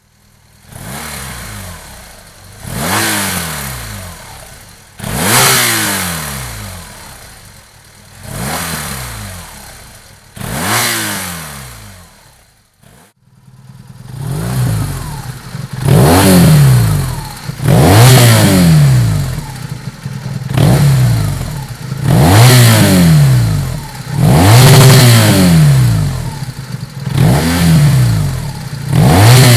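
BMW HP2 Enduro's 1170 cc boxer twin being blipped repeatedly from idle, each rev rising and falling, about every two seconds. The first revs are through the stock silencer. After a brief break about halfway, the revs come noticeably louder through a Dominator aftermarket silencer.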